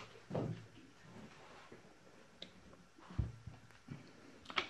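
Handling noises as a car battery is brought over and set down on a bench: a few soft low thumps, then a sharp knock near the end.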